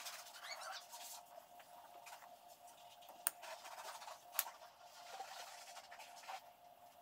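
Faint scraping and rustling of hands working a plastic air-spring air line along a truck's frame, with two sharp clicks about three and four and a half seconds in, over a faint steady hum.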